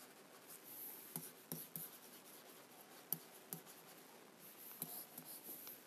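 Marker writing on a whiteboard: faint strokes with scattered light taps of the tip.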